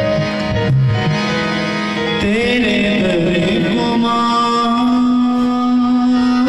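Live Himachali devotional song: a dholak drum plays strokes over a Roland keyboard in the first two seconds, then a singer's voice comes in, holding long notes over sustained keyboard chords.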